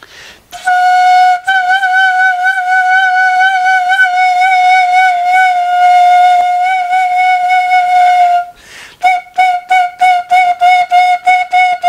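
A plastic danso (Korean vertical notched flute) blown with abdominal breath: one long held note with a slight waver, then after a quick breath a run of short tongued notes on the same pitch, about four a second.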